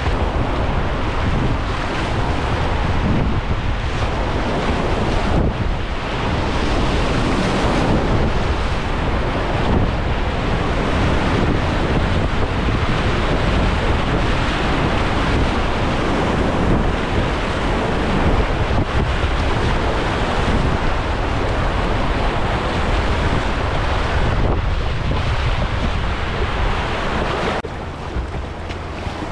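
Class II+ whitewater rapid rushing and splashing close around a kayak, a loud, dense roar of water with heavy buffeting on the microphone. The water gets quieter about a second and a half before the end.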